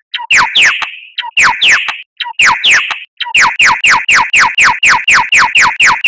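Bird song recorded for a song-bird training track: rapid, sharp whistled notes, each sweeping quickly down from high to low. These are the 'tembakan' (shot) notes the track is meant to teach. They come in short pairs with gaps at first, then run on unbroken at about four notes a second from about halfway through.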